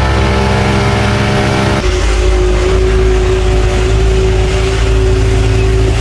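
Small speedboat's outboard motor running loudly and steadily, heard from a seat in the back of the boat. The engine's tone shifts abruptly about two seconds in, then holds steady.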